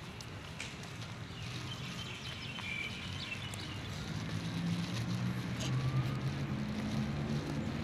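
Outdoor background with a low engine hum from a motor vehicle that grows louder over the second half, and a few faint clicks.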